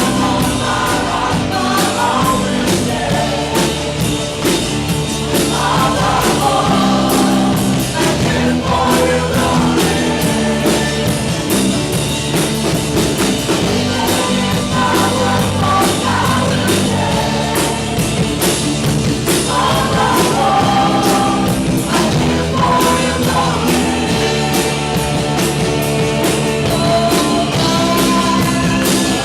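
Live church worship band playing an upbeat rock-style praise song, with singing over a steady drum beat and amplified instruments.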